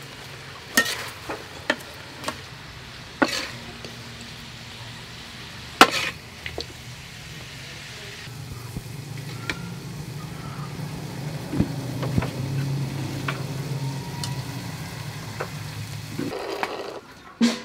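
A metal ladle clinks and scrapes against an aluminium wok and a metal plate as stir fry is served, with a string of sharp clinks in the first six seconds. A steady low hum runs underneath in the second half.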